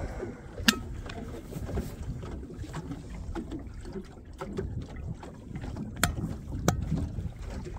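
Boat trolling on open lake water: a steady low rumble of water and wind against the hull. A few sharp clicks sound over it, the loudest a little under a second in.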